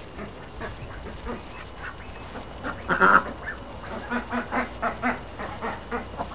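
White domestic duck quacking: one loud call about three seconds in, then a run of short quacks about four a second.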